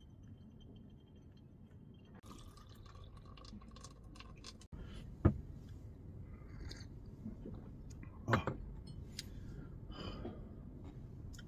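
Hot water poured in a thin stream from a gooseneck kettle into a pour-over coffee dripper over a glass server. After that, two sharp clinks of glassware set down on the table, about three seconds apart, with a few lighter clicks.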